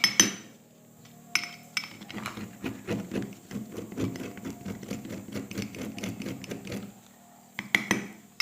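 Pot of broad beans on the boil, giving a fast, even run of light rattling taps over a low steady hum, with a couple of sharper clicks near the start.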